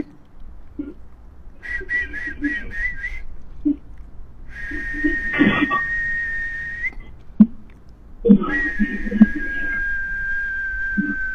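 A high whistling tone: a run of about five short notes, then two long held notes, the last one sinking slightly in pitch.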